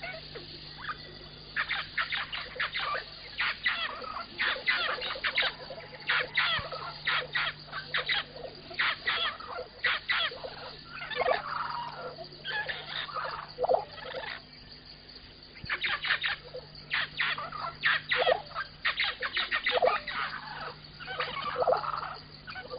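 Birds calling outdoors in quick, repeated chirps and squawks, in runs with a short lull a little past the middle. A faint steady low hum lies underneath.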